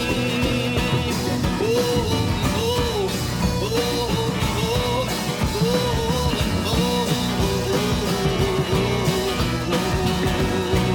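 Psychedelic rock music: an instrumental passage of the song, with a melodic figure that bends up and down and repeats about once a second over a steady band.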